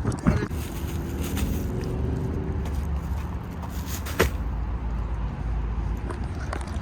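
A motor running with a steady low rumble, its pitched hum plain for the first few seconds, with a few sharp clicks or knocks over it.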